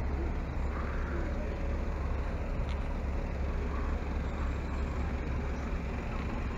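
Outdoor street ambience dominated by a steady low rumble on the microphone, with faint distant voices.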